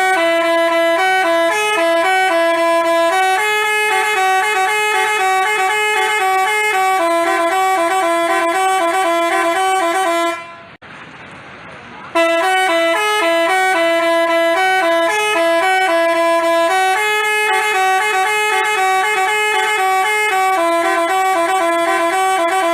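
Basuri telolet bus horn playing a quick melody of stepping horn notes. It stops for about a second and a half near the middle, then plays the same tune again.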